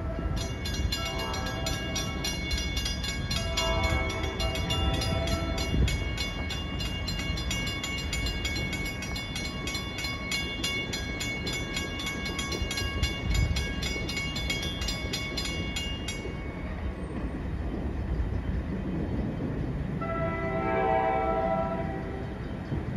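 Grade-crossing warning bell ringing rapidly and stopping about 16 seconds in, as an approaching NJ Transit Pascack Valley Line train sounds its horn twice in the first five seconds and again near the end. A low, steady engine rumble from the train runs underneath.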